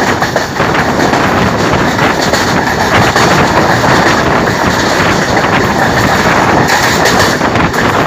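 Passenger train coaches running at speed on the rails, heard from an open window: a loud, steady rolling noise of wheels on track, with scattered clacks over the rail joints.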